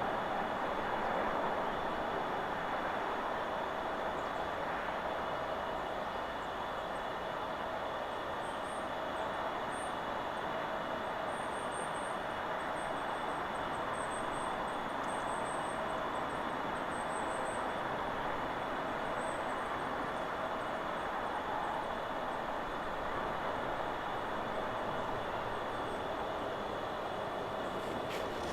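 Steady wind rushing through forest trees, with faint high-pitched chirps from small birds in the middle stretch.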